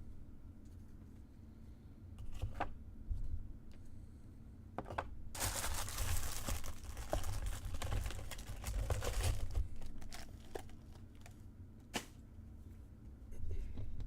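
Trading cards and foil pack wrappers being handled on a table: a few short taps and clicks, then about four seconds of rustling in the middle.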